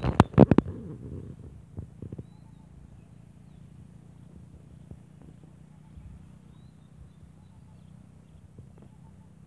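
A quick cluster of loud knocks and rubs from fingers handling a phone over its microphone. After that comes a low, steady rumble outdoors, with a few faint bird chirps.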